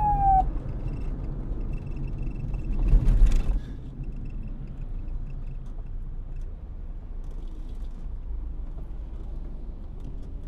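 A police siren's falling wail cuts off just after the start, leaving a steady low traffic rumble. Around three seconds in a louder rush of noise swells up and dies away by about four seconds.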